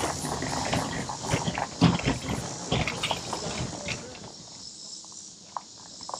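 Insects, likely crickets, chirring steadily. Irregular knocks and scuffs run through the first four seconds, then thin out to a few faint ticks.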